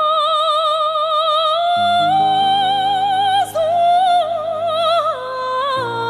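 A woman singing long, high held notes with a wide vibrato in a classical style, taking a quick breath about halfway through. A band accompanies her with sustained chords, and the bass moves to a new note twice.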